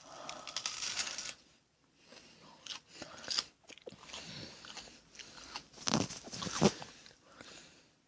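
Biting and crunchy chewing of a raw onion, in several bursts, the loudest about six and a half seconds in.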